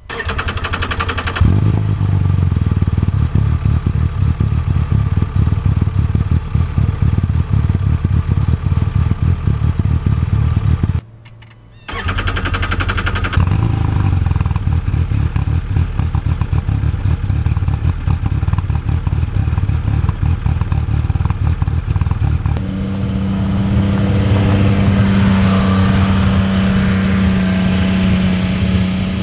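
Arctic Cat Wildcat XX side-by-side's three-cylinder engine running at the tailpipe through the stock exhaust. After a brief drop about eleven seconds in, it runs through a Speedwerx Q6 slip-on exhaust. Near the end the machine, back on its stock exhaust, drives slowly past with a steady engine note that swells as it goes by.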